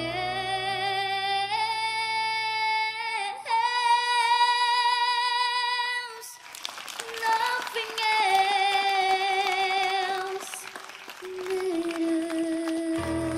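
A young girl sings solo into a microphone, holding long high notes with vibrato over quiet musical backing. There is a short break between phrases about six seconds in.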